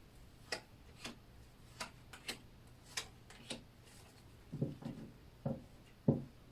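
Tarot cards being drawn from the deck and laid out on a table: a series of light clicks and ticks, then a few duller taps in the last couple of seconds.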